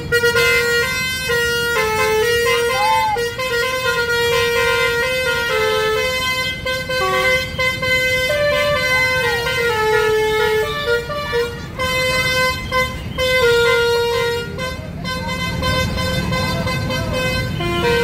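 A tour bus's basuri telolet horn, the multi-tone musical air horn, playing a tune. It runs as a string of held notes that step up and down, with a brief pause about three-quarters of the way through.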